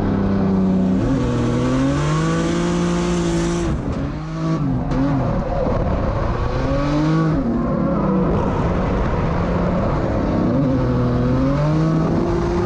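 Drift car's engine heard from inside the cabin while being driven hard, the revs rising and falling repeatedly as the throttle is worked, with a brief lift about four seconds in.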